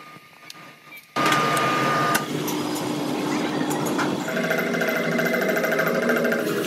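Workshop machinery running, the sound changing every couple of seconds: a sudden loud start with a steady high whine about a second in, then a rougher machining sound, then from about halfway a steady mechanical run with a fast rhythmic clatter and a hum.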